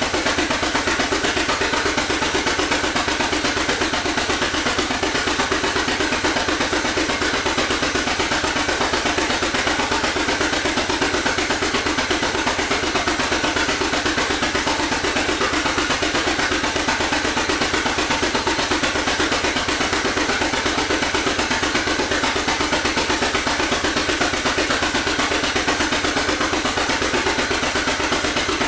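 1917 Avery 8-16 two-cylinder tractor engine running steadily on the belt, driving a belt load, with an even, unbroken beat.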